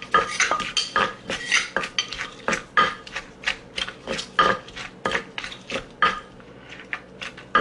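Wooden pestle pounding in a mortar, about two strokes a second, with a metal spoon clinking against the mortar as it turns the ingredients. This is cucumber salad (tam mak taeng) being pounded.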